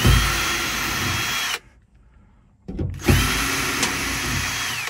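Power drill spinning out screws in two runs. Its whine climbs to speed, holds steady for about a second and a half and winds down. It starts again a second later.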